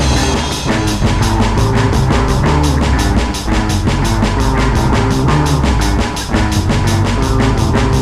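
Background rock music with a fast, driving drum beat and bass.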